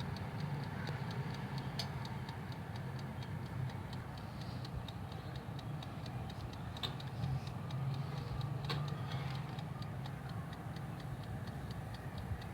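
Mechanical wind-up timer of a glass-bowl countertop oven ticking steadily over the low hum of the oven running, just after it has been set for half an hour of cooking.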